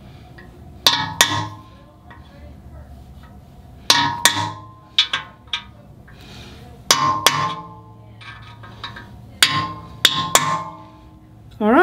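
Hammer striking a punch to swedge press-in oil galley plugs into a cast-iron Ford FE V8 block: about ten sharp, ringing metal strikes in groups of two or three. A short wavering tone sounds near the end.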